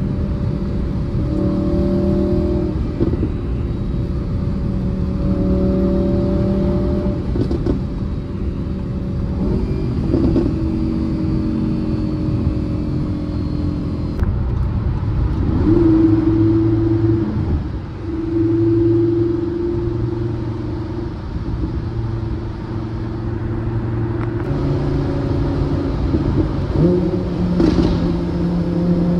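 Audi R8's V10 engine and exhaust at autobahn speed, heard from inside the cabin over wind and road noise. The engine note steps up and down several times as the automatic gearbox changes gears.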